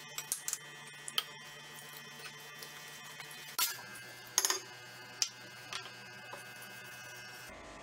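Wheat rava batter being mixed with a wooden spoon in a steel bowl: scattered light clicks and taps of the spoon against the bowl, a few louder ones past the middle, over a faint steady hum.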